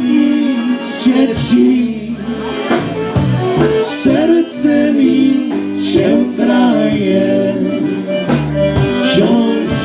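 Live polka band playing, with trumpet, accordion, bass guitar and drums.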